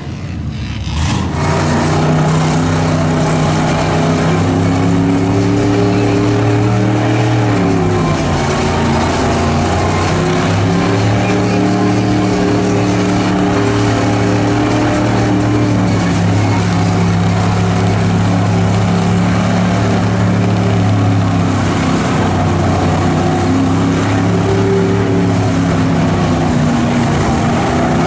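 Off-road vehicle engine held at high revs for a long stretch. The revs drop about seven seconds in and climb back, then sag a little again near the end.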